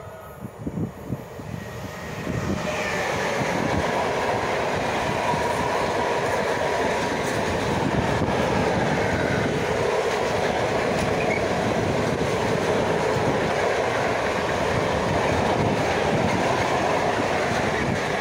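Electric freight train passing close by: the locomotive goes by, then a long rake of open freight wagons rumbles and clatters over the rail joints with a thin steady squeal from the wheels. The noise builds about two seconds in, holds steady, and starts to fade at the very end as the last wagon passes.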